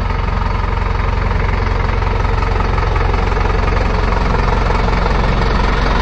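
Sonalika DI 55 4x4 tractor's diesel engine running at low revs as the tractor is driven slowly up close, with an even, rapid low diesel knock. It grows a little louder as the tractor comes nearer.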